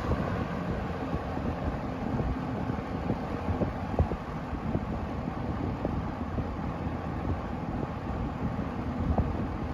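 20-inch Penncrest 200 box fan (made by Lakewood) running steadily on intake with its quiet reversible motor and metal blade, a broad rushing of moving air. The fan eases off a little right at the start as it settles on a lower speed.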